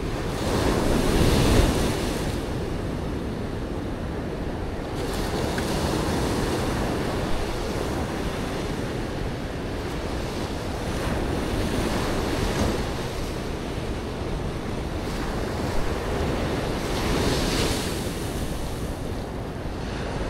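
Ocean surf breaking and washing up the beach, swelling about every five seconds, with wind buffeting the microphone.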